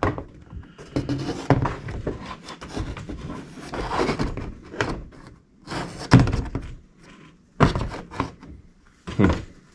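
Plastic grille and bumper trim pieces knocking and rattling as they are handled and fitted together, with a series of short thunks, the loudest about six seconds in.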